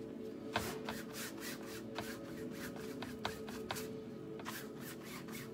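Paintbrush strokes scraping quickly back and forth across a stretched canvas, laying on wet acrylic paint, a few strokes a second, with a short pause near the end. Quiet background music plays under it.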